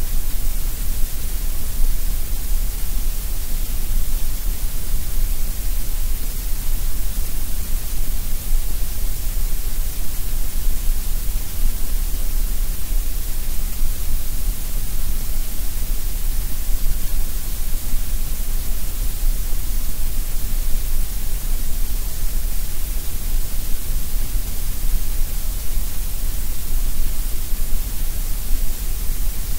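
Steady, unchanging synthetic colored noise for sleep: a constant hiss with a deep low rumble underneath, without rhythm or variation.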